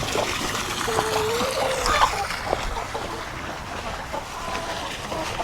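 Water splashing and trickling, with a short bird call about a second in.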